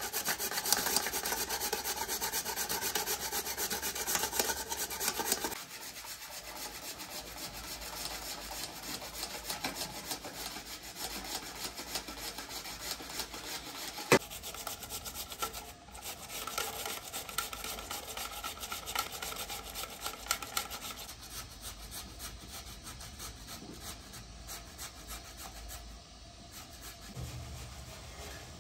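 Raw potatoes being grated on a metal box grater into a metal pot: quick repeated rasping strokes, louder for the first five or six seconds and quieter after. A single sharp click about halfway through.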